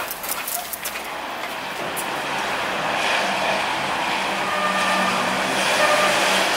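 Outdoor city traffic: a car passing on a nearby street, its sound slowly swelling over a few seconds against a steady background of road noise.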